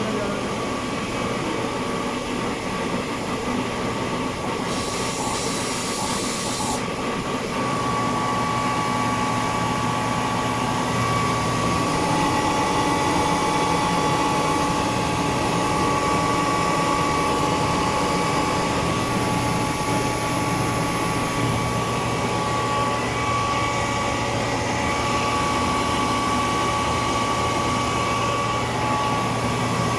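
Screw air compressor running steadily, a continuous hum with a steady whine. A high hiss of air lasts about two seconds, starting around five seconds in, and the low hum grows a little stronger about eight seconds in.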